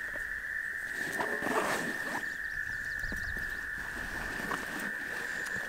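Frogs trilling in a steady, high-pitched chorus, with rustling and a few clicks as a waxed canvas backpack is packed and closed.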